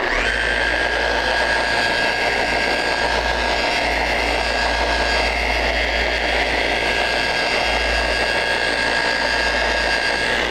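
Festool Rotex sander switched on and running steadily at its lowest speed in gear-driven Rotex mode, an orange foam polishing sponge spreading polish over a wooden block; a steady motor whine over a low hum.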